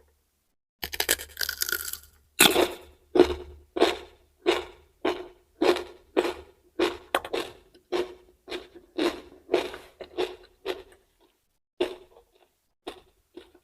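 Close-up crunchy chewing of raw vegetables: a crackling bite about a second in, then steady crisp crunches at about one and a half a second, thinning out to a few last chews near the end.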